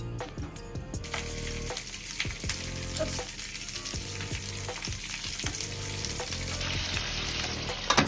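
Stuffed green pepper halves sizzling in olive oil in a frying pan, the sizzle starting about a second in as they are laid meat-side down. Near the end, a lid is set on the pan with a sharp clack, to steam-fry them.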